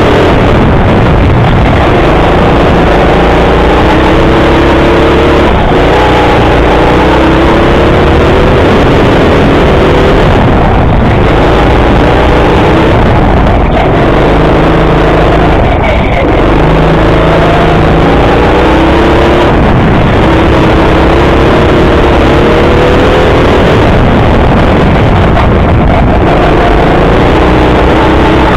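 Racing go-kart's motor heard onboard at speed, loud, its pitch repeatedly climbing and then dropping as the kart accelerates out of corners and slows into them.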